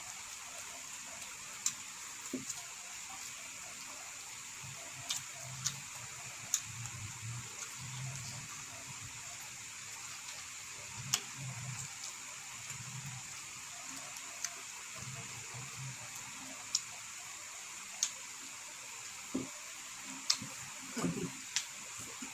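People eating rice and food by hand: soft wet chewing and lip-smacking with scattered sharp clicks, the loudest about eleven seconds in and near the end, over a steady faint hiss.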